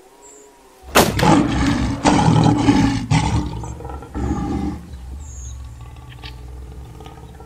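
Lion growling and roaring. It starts abruptly about a second in, is loudest over the next few seconds, then carries on as a lower, quieter rumble.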